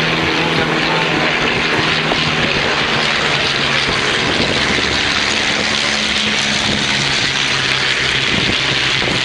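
Piston-engined propeller aircraft flying low past, a loud steady engine drone whose pitch shifts a few times as they pass.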